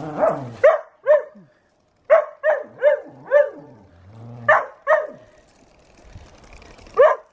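Whippets barking: about nine short, high barks in small groups, with a pause of about two seconds before a last bark near the end.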